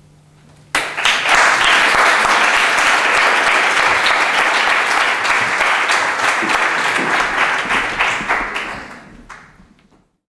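Audience applauding: a burst of clapping starts suddenly about a second in, holds steady, then fades out near the end.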